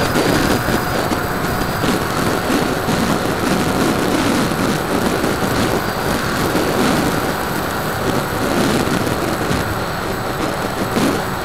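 Airflow rushing and buffeting over the wing-mounted onboard camera's microphone of a Bixler 2 RC plane in flight: a loud, steady, rumbling hiss with a faint steady whine underneath.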